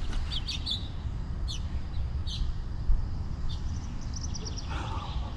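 Wild birds chirping: a few short high calls, then a quick trill of about eight notes around four seconds in, over a steady low rumble.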